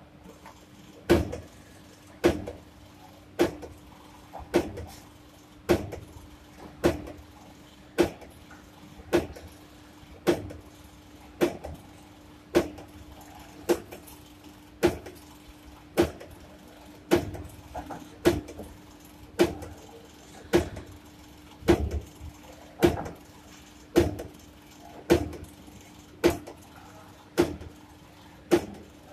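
ZM-790 automatic double-loop (Wire-O) binding wire cutting machine running: a steady motor hum with a sharp cutting clack a little under once a second, each stroke cutting a length off the twin-loop wire. The first cut comes about a second in, just after the machine is switched on.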